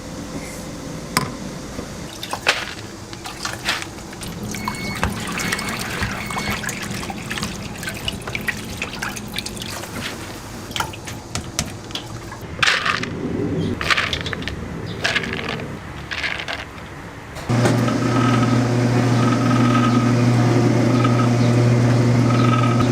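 Liquid pancake batter being stirred and poured, with scattered clinks of utensils. About 17 seconds in, a steady low mechanical hum starts abruptly and stays.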